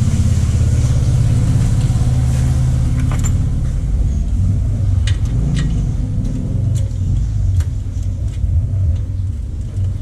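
A motor running with a loud, steady low rumble, having spun up just before, with a few light metallic clicks and taps over it.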